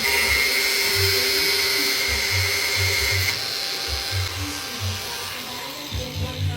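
Background music with a steady beat, over the high, steady whine of an electric power tool that stops about halfway through.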